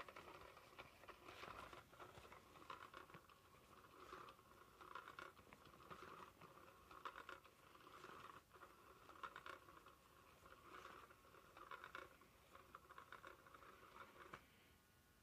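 SmartyKat Hot Pursuit cat toy running faintly. Its motor whirs in uneven spurts as it drives the wand around under the fabric cover, with light scraping and rustling of the fabric. It stops near the end.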